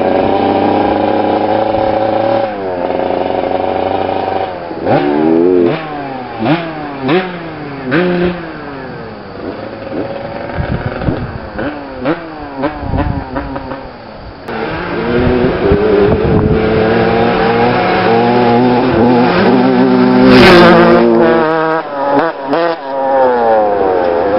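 Vintage two-stroke motocross bike engines revving hard, the pitch climbing and dropping again and again with the gear changes. The engine note grows loudest about twenty seconds in, with a sharp burst at its peak.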